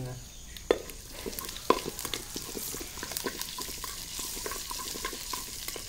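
Mustard seeds, cumin, chana dal and urad dal sizzling and crackling in hot oil in a kadai while a metal spoon stirs them: the tempering (thalippu) for pirandai thuvaiyal. Two louder sharp clicks come in the first two seconds.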